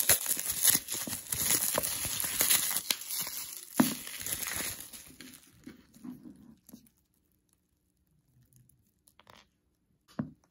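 Bubble wrap crinkling and tearing as it is pulled off a plastic jar, with a sharp snap about four seconds in. The rustling dies away after about six seconds, leaving only a few light taps near the end.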